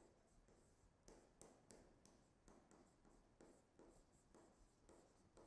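Faint, irregular taps and scratches of a stylus writing on a tablet screen.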